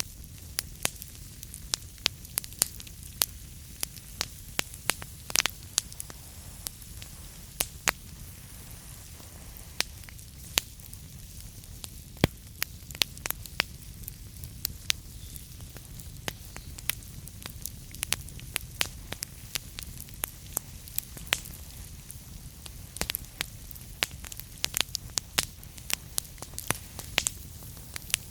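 Wood fire in a fireplace crackling: frequent sharp, irregular pops and snaps over a steady low rumble and hiss.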